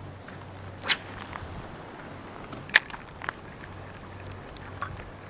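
A few sharp clicks and knocks, the loudest two about a second in and just under three seconds in, over steady outdoor background hiss with a faint high-pitched whine.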